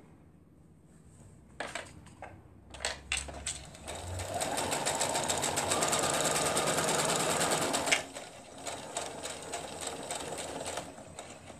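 Electric sewing machine stitching a seam through layered patchwork fabric. After a few clicks it runs steadily at speed for about four seconds, stops sharply, then goes on in slower, uneven stitches.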